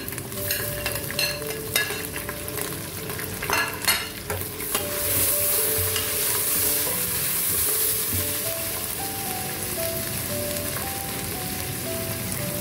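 Chopped tomatoes frying in hot oil with browned onions in an aluminium pressure cooker, sizzling while a metal ladle stirs and knocks against the pot. The sizzle swells about five seconds in.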